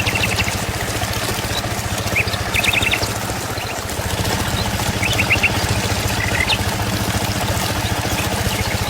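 A steady motor hum with a fast low pulsing, with birds chirping in short quick runs of notes now and then.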